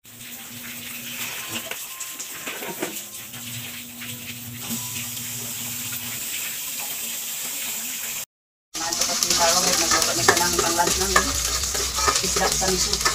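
Kitchen sounds during food preparation: a steady sizzling hiss with scattered light clicks. After a short break about eight seconds in, it comes back louder, with busier clatter.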